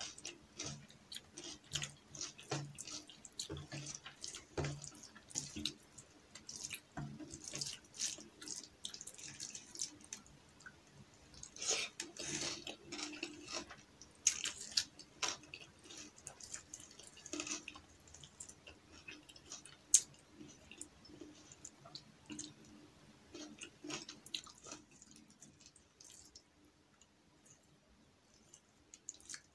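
Close-miked wet eating sounds: fingers squishing and mixing rice with lentil dal on a plate, with sticky clicks and smacks. The crackles are densest about halfway through and thin out near the end.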